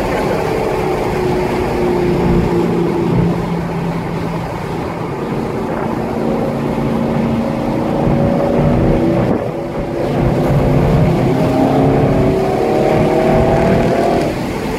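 Dodge Challenger SXT's V6 engine heard from inside the cabin at speed, its pitch easing down, then climbing under acceleration, dipping briefly about nine and a half seconds in, and climbing again, with steady road and wind noise.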